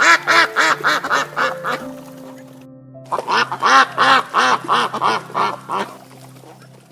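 Duck quacking in two fast runs of about ten calls each, the first starting right away and the second about three seconds in, over background music.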